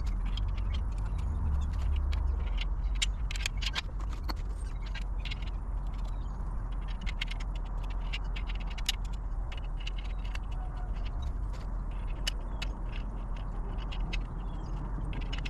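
Scattered light clicks and clinks of steel carport tubing, brackets and bolts being handled and fitted together by hand, over a steady low rumble.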